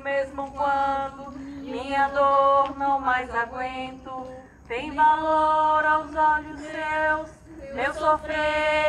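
A group of people, mostly women's voices, singing a Portuguese religious hymn together in long held phrases with short breaks between them.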